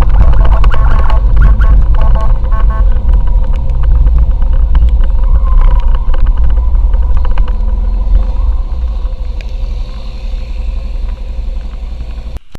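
Motorcycle on the move, heard from the rider's own microphone: a heavy, steady low rumble of wind and road noise over the engine. It fades down over the last few seconds and stops abruptly.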